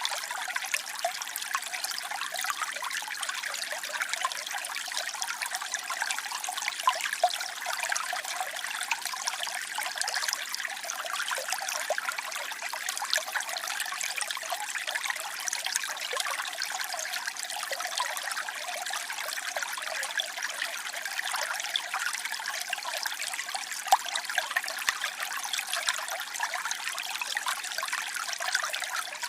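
Small waterfall: water falling and splashing steadily, a continuous patter of many small splashes with hardly any deep rumble.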